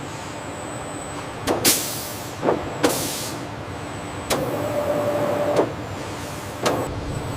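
Car assembly-line machinery noise: several sharp metallic knocks and short hisses of air over a steady running hum, with a steady whine lasting about a second near the middle.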